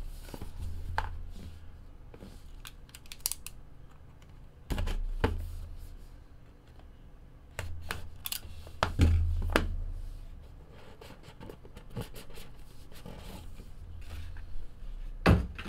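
Cardboard trading-card hobby box being handled and opened on a table: scattered scrapes, taps and clicks, with a few dull thumps, the loudest near the end.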